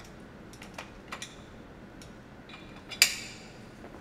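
Light metallic clicks and ticks as an electric actuator is seated on a patient lift's boom, with one much louder clank about three seconds in that rings briefly.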